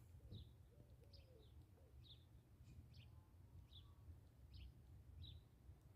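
Faint bird chirping: a series of short, high chirps, roughly one every half second to second, over a low background rumble.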